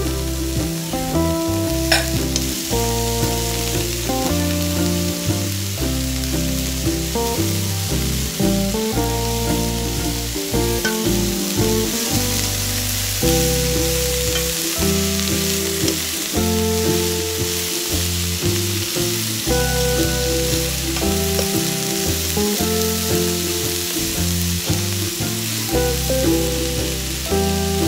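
Roast pork, broccoli and cabbage sizzling in a hot wok as they are stir-fried with a wooden spoon, with one sharp knock about two seconds in, under background music.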